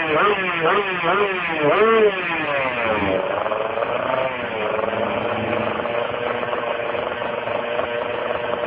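Small drag-racing motorcycle's engine revved in quick blips, about two a second, for the first couple of seconds, then dropping back and running at a steady speed.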